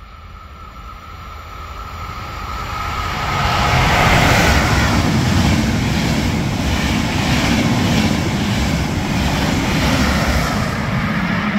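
An Intercity train hauled by two E414 electric locomotives in double traction runs through the station at high speed. Its rushing sound swells over the first few seconds as it approaches, then settles into a loud steady rumble with a quick, even clatter of wheels as the coaches and the trailing locomotive go by.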